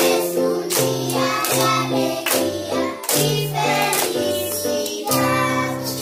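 A group of children singing a song to an electronic keyboard accompaniment of held bass notes and chords, with a regular beat of sharp strokes.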